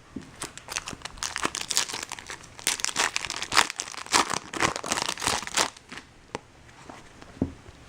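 Foil wrapper of a trading-card pack crinkling and tearing for about five seconds, then a few light clicks.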